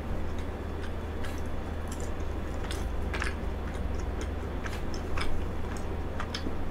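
Close-miked chewing of a bite of frozen cheesecake: scattered soft, irregular mouth clicks and smacks over a steady low hum.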